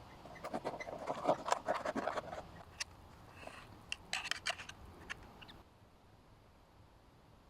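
Irregular light clicks, scratches and scrapes, thickest in the first two seconds, with a few sharper clicks about four to five seconds in.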